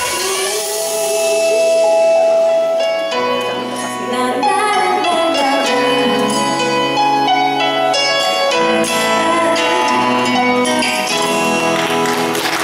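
Woman singing into a microphone over a recorded backing track as the song reaches its outro, with one long held note in the first few seconds. Applause starts near the end.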